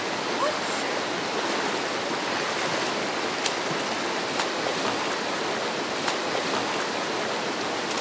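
Mountain creek rushing steadily, a constant wash of water noise with a few faint ticks in the middle.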